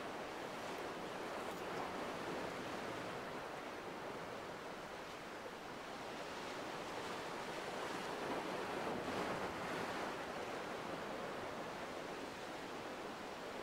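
Sea waves surging and washing against rocks in a steady wash that swells and eases, loudest about two-thirds of the way in.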